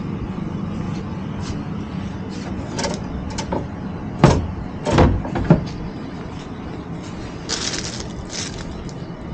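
Plastic-wrapped fishing landing nets being handled on a display stand: a few rustles and three loud knocks of the frames in the middle, then a short crackle of plastic near the end. A steady low hum runs underneath.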